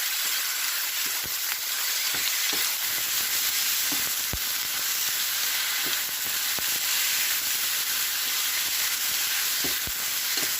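Sliced chicken breast with onions and garlic frying in hot oil in a pan: a steady sizzle, with a few faint clicks.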